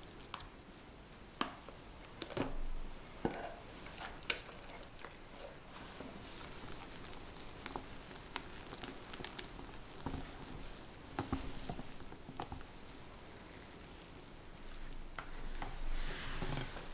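Wire whisk folding whipped meringue into red velvet cake batter in a glass bowl: soft wet squishing with scattered light clicks of the whisk against the glass. Near the end a silicone spatula scrapes and folds the batter, a little louder.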